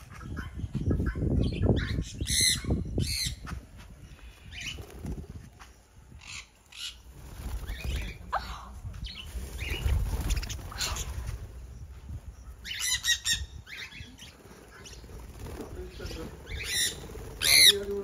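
Small parrots, sun conures and budgerigars, flapping their wings as they land and jostle on a hand, with several shrill, harsh squawks in short clusters.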